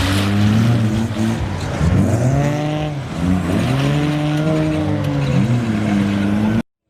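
Off-road 4x4 engine revving hard, its pitch rising and falling again and again; the sound cuts off abruptly near the end.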